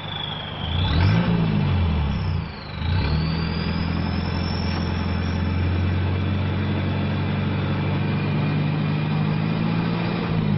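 Toyota Hilux Vigo turbo-diesel engine revved: a quick blip about a second in, then revs held up to the end, with a high turbo whistle that dips and climbs with each rev and stays high while the revs are held. The stock turbo has been modified to give this whistle.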